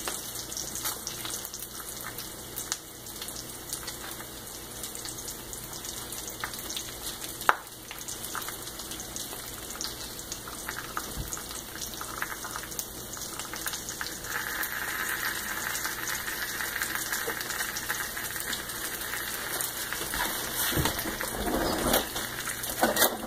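Eggs frying in a square cast-iron skillet: a steady sizzle with scattered crackles and spits of hot fat, growing a little louder about halfway through. A single sharp click about seven seconds in.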